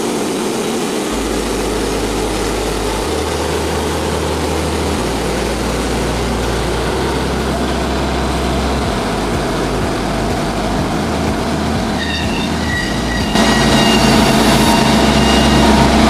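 Frontier OS27 bandsaw mill's gasoline engine running under load as the band blade cuts along a white oak log. About twelve seconds in a higher whine joins, and a second later the sound gets louder as the blade works through a very hard spot in the oak.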